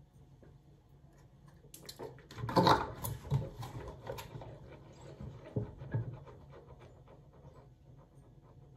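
Mouthwash being swished around inside closed, puffed-out cheeks: irregular wet sloshing, loudest from about two to four seconds in, with a few softer swishes around six seconds.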